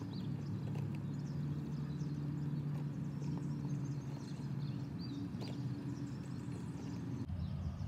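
Outdoor ambience: a low steady rumble, with small birds chirping now and then and a few light clicks as plastic eggs are handled.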